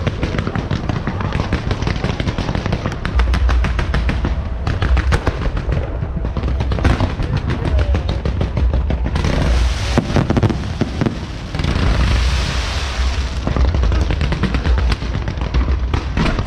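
Firecrackers and fireworks going off: a dense, rapid crackle of many small bangs over a low rumble of booms. About halfway through the separate cracks merge into a thicker, hissing crackle.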